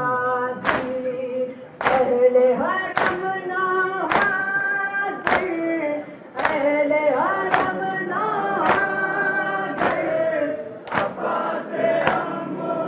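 Crowd of Muharram mourners chanting a noha in chorus while beating their chests (matam) in unison, a sharp collective slap about once a second keeping time with the chant.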